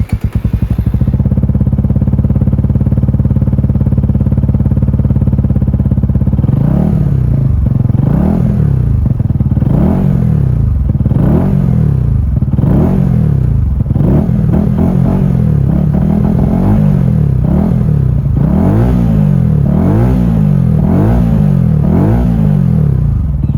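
Benelli TNT 125's single-cylinder four-stroke engine running through a Scorpion exhaust with the baffle removed: a steady loud idle, then about six seconds in it is blipped repeatedly, revving up and dropping back again and again.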